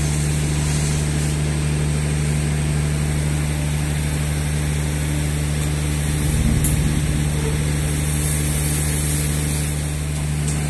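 Steady low hum of a machine running with no change in speed or level.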